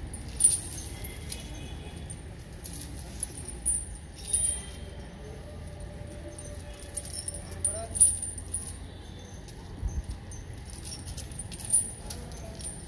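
Irregular metallic jingling and clinking in short bursts, with voices in the background.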